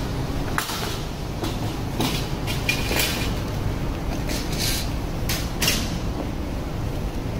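City street ambience: a steady low rumble with about nine short, sharp clicks and clatters at irregular intervals.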